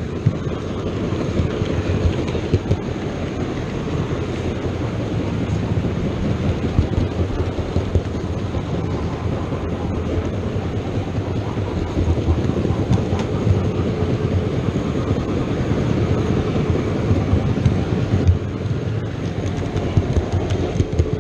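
OO gauge model train running steadily along the layout's track, with its wheels and motor making a continuous rolling noise and a few light clicks over the rail joints.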